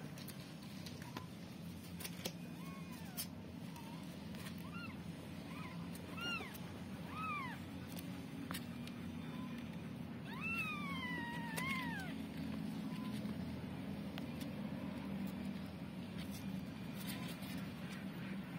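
Newborn kittens mewing while they nurse: a string of about six short, high, squeaky mews a couple of seconds in, then one longer mew that falls and rises again about ten seconds in.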